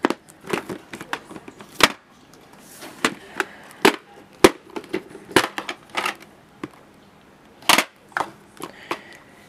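Plastic VHS clamshell cases and cassettes being handled: an irregular run of sharp clicks and clacks, with a few louder ones spread through.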